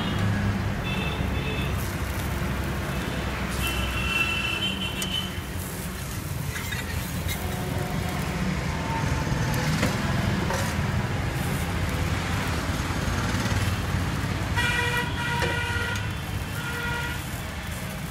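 Road traffic rumbling steadily, with vehicle horns tooting several times: near the start, around four seconds in, and again in a longer stretch of honking about fifteen to seventeen seconds in.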